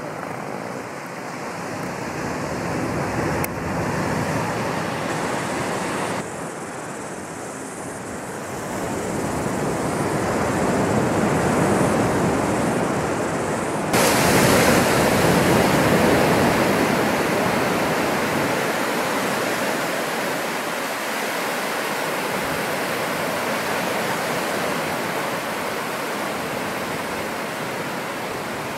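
Surf washing onto a sandy beach: a steady, even rush of small waves. The rush jumps suddenly in level a few times and is loudest around the middle.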